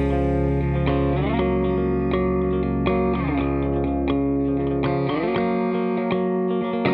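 Background music: a solo guitar passage with effects, picking individual notes over a held low note, without drums.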